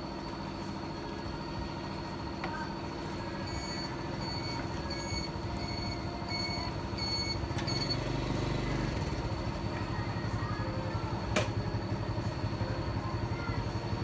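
Steady hum of a running engine, with a string of about six evenly spaced high beeps in the first half. About eight seconds in, a low pulsing engine rumble swells up, with a single sharp click a few seconds later.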